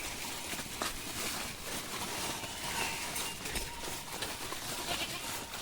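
A herd of goats walking, with many faint clicks and rustles of hooves on the ground.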